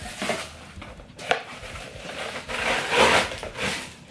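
Cardboard box handled and a headset stand in a plastic bag pulled out of it: rustling and scraping, with a sharp knock about a second in and the loudest rustle near the three-second mark.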